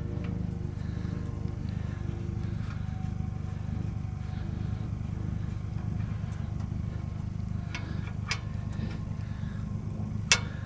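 Steady low engine rumble, like a motor running at idle. A few sharp clicks stand out about eight and ten seconds in.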